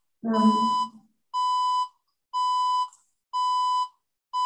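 Electronic beeping: the same steady tone sounds for about half a second once every second, five times, like an alarm or timer signal. A brief voice overlaps the first beep.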